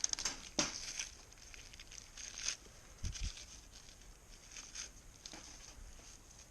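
Scattered clicks, rattles and rustling from a wire live-catch cage trap being handled and set, busiest in the first second, with two low thumps about three seconds in.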